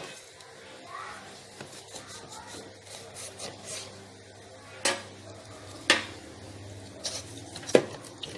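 Hands working a raw whole duck in a plastic basin: wet rubbing and handling noise of skin and flesh, with three sharp clicks, about halfway through, again a second later, and near the end.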